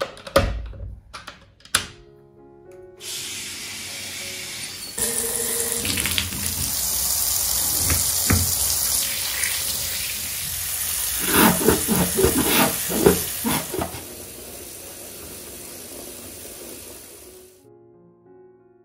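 A few clicks of a door lever handle, then a tap runs into a bathtub. The water pours over a hand and splashes, getting louder about five seconds in, and stops shortly before the end, leaving soft piano music.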